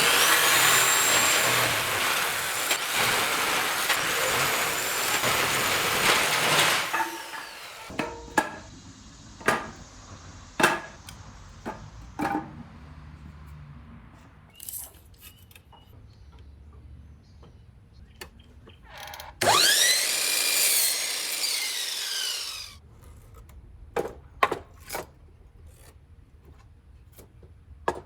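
Power saw cutting pallet wood: one long cut of about seven seconds with a high whine, then scattered knocks and clatter of boards being handled. The saw spins up again with a rising whine for a shorter cut of about three seconds near two-thirds of the way in, followed by more knocks.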